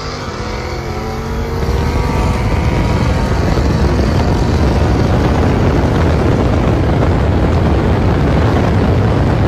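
Two cars racing side by side at full throttle on a highway, a supercharged 5.0 Mustang alongside, heard from a moving car as a loud, steady roar of engines and rushing air that swells about two seconds in.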